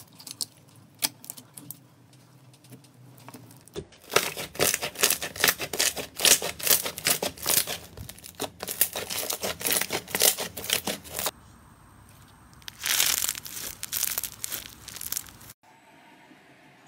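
Slime pressed and squeezed by hand, with the crackling and popping of trapped air bubbles. It starts as scattered sharp clicks, turns to several seconds of dense crackling, then a shorter burst of crackling, and stops abruptly near the end.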